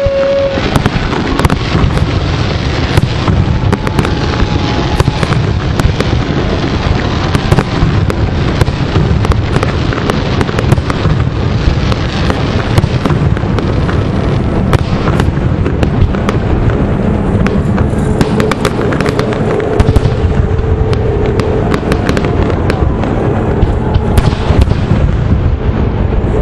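Aerial fireworks shells bursting and crackling in a rapid, loud barrage, the reports overlapping with hardly a gap.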